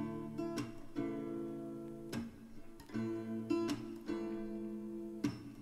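Background music: an acoustic guitar strumming chords, with a pause between sung lines.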